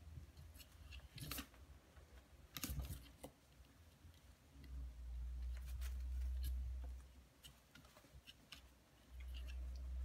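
Coton de Tulear puppies' claws scratching and clicking against the front panel of their pen as they paw at it, in scattered light clicks and scrapes. A low rumble comes in about halfway through and again near the end.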